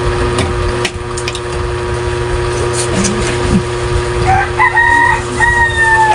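A rooster crowing about four seconds in: a short note, then two long held calls, the last falling slightly at the end, over a steady low hum.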